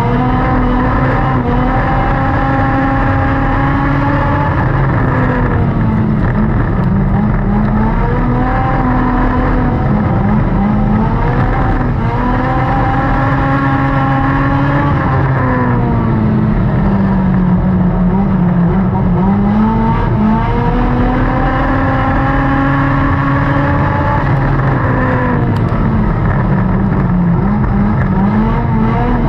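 Dirt-track race car's engine at racing speed, heard from inside the cockpit, its pitch climbing and falling about every six seconds as the driver goes on and off the throttle, with one longer low stretch near the middle.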